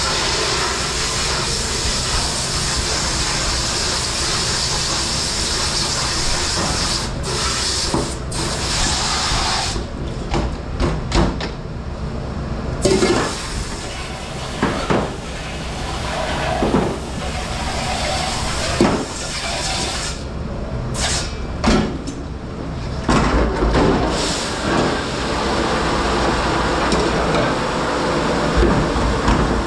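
Commercial dish-room washing: a steady rush of spraying water, broken through the middle by a run of sharp clanks and clatters of dishware and pans being handled.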